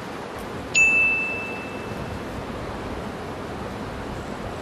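A small bell struck once, about a second in: a single clear ding whose ring fades away over about a second, over a steady outdoor hiss.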